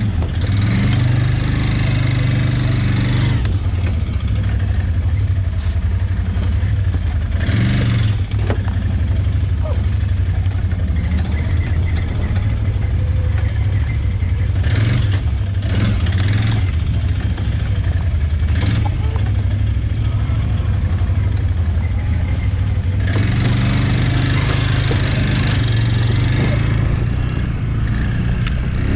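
Quad (ATV) engine running steadily at low revs while riding over rough ground, with a rushing noise that swells several times over the engine.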